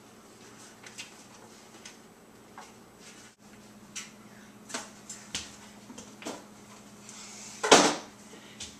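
Scattered light knocks and clicks of things being handled over a faint steady hum, with one louder thud near the end.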